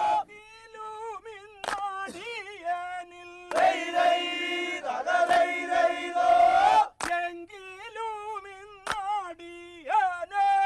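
Traditional Kerala snake-boat song: a lead voice sings an ornamented, wavering melody, a full chorus joins in about three and a half seconds in, and the lead voice carries on alone after it, with a few sharp beats along the way.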